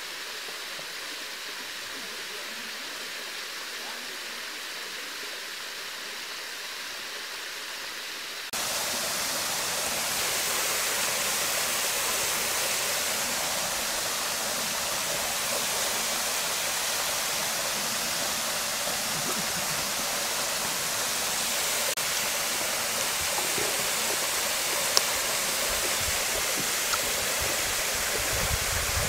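Waterfall rushing into a pool, a steady, even rush of water that jumps suddenly louder and fuller about eight seconds in.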